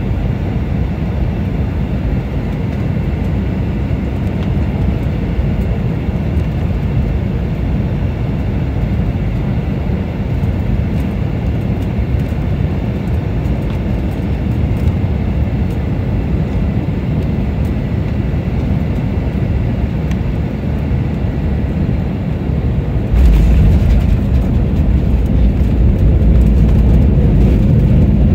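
Steady engine and airflow noise inside an airliner cabin on final approach. About 23 seconds in, the aircraft touches down and a louder, deeper rumble of the wheels rolling on the runway sets in.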